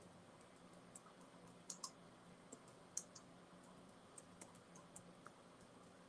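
Faint, irregular clicks of typing on a keyboard, with a few sharper taps about two and three seconds in, over near-silent room tone.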